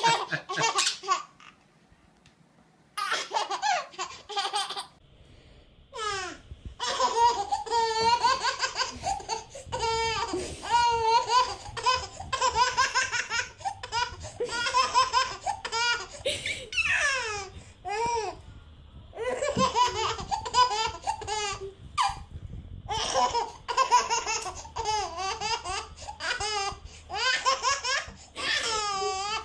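Baby laughing again and again in high-pitched peals, with a short lull near the start.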